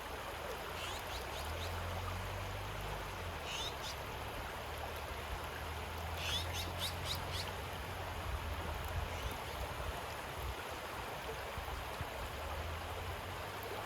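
A river running over pebbles, with a steady rushing and a low rumble underneath. A songbird gives short rising chirps about a second and three and a half seconds in, then a quick run of five or six notes around six to seven seconds in.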